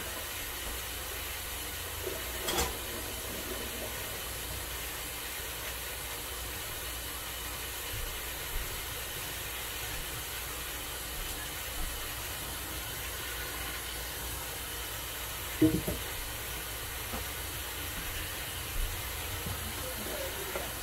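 Kitchen faucet running steadily, its stream splashing onto a sink full of mustard and turnip greens. Two brief knocks at the sink, a small one a few seconds in and a louder one about three-quarters of the way through.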